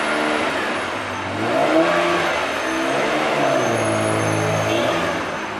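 Classic air-cooled Porsche 911's flat-six engine revving as the car pulls away at low speed. The engine pitch rises and falls several times.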